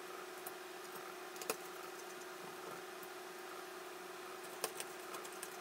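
A few small sharp clicks and taps from a screwdriver and a circuit board being handled during reassembly. The loudest comes about a second and a half in and two more close together near the end, over a steady faint hum.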